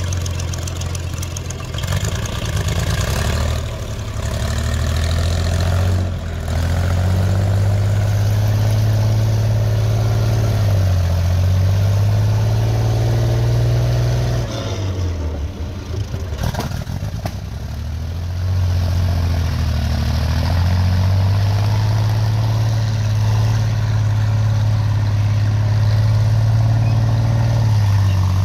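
King Tiger (Tiger II) tank's Maybach HL230 V12 petrol engine running hard, the revs shifting up and down, easing off for a couple of seconds about halfway through and then picking up again.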